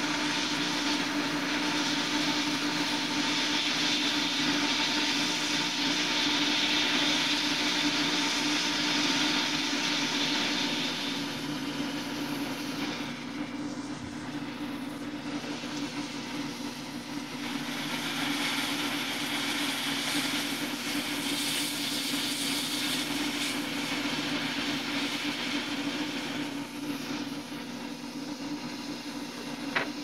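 Steady whir of an electric blower with a rushing-air hiss; the hiss fades about twelve seconds in and comes back around eighteen seconds.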